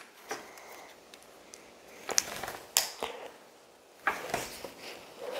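Plastic LEGO bricks being handled and pressed together: scattered light clicks and taps, with a few sharper clicks a little over two, nearly three and about four seconds in.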